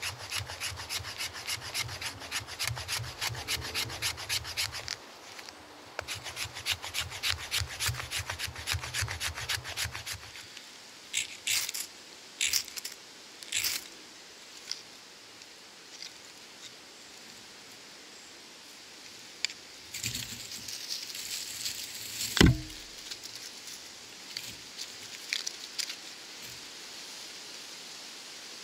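A knife shaving thin curls off a wooden stick to make a feather stick, at about four quick strokes a second with a short break about five seconds in. Then a ferrocerium rod is scraped in several separate sharp strikes to throw sparks into fibre tinder; the loudest, about 22 seconds in, is a sudden sound that drops steeply in pitch.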